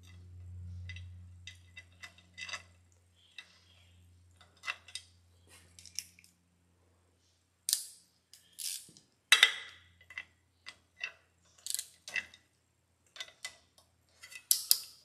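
Hand tools clicking and clinking on metal as the bolt on the outboard's shift-linkage clamp is tightened: irregular sharp metallic ticks, louder and more frequent in the second half. A faint low hum runs under the first few seconds.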